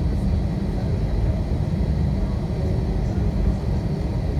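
Jet airliner cabin noise: the engines running at steady power give a deep, even rumble with a faint high whine above it.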